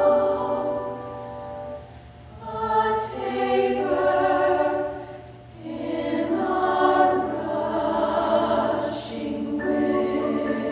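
Women's choir singing a slow piece in several parts with piano accompaniment, its phrases breaking off twice briefly for breaths. Near the end the voices fall away and the piano carries on.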